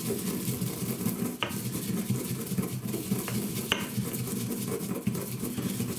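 Coriander seeds being crushed with a pestle in a mortar: steady grinding with a few sharp clinks of the pestle against the mortar.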